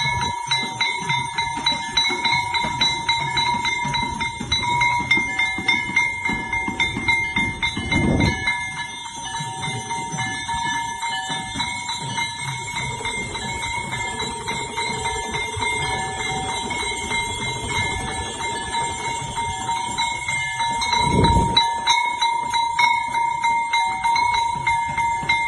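A metal bell rung rapidly and without pause, its ringing tones held steady throughout, with a deep thud about eight seconds in and another a little past twenty seconds.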